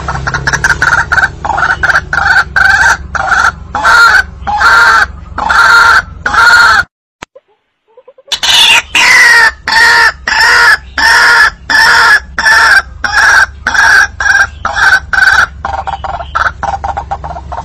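White-breasted waterhen calls from a recorded hunting lure: a fast, loud, repeated ruak-ruak of about three notes a second. The calling breaks off for about a second and a half midway, then resumes.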